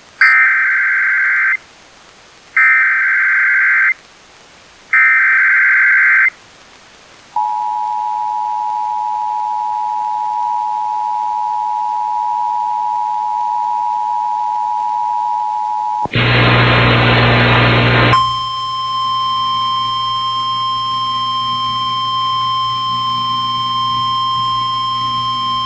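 Emergency Alert System broadcast tones: three short warbling SAME header data bursts, then the EAS two-tone attention signal held for about nine seconds. About two seconds of hiss follows, then the steady single 1050 Hz NOAA Weather Radio warning alarm tone of the relayed alert.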